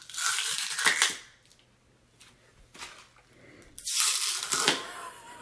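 An apple-shaped plastic apple juice bottle bitten twice, once at the start and again about four seconds in. Each bite gives a crisp, crackling crunch; the bottle is made to sound like biting into an apple.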